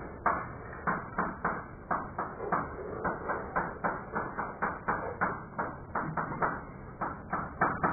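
Chalk tapping on a chalkboard as a formula is written: an uneven run of sharp taps, about two to three a second.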